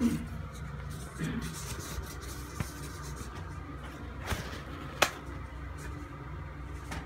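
Mitsubishi centrifugal bathroom exhaust fan running with a steady hum, under rustling and bumps from the camera being handled; a sharp knock about five seconds in is the loudest sound.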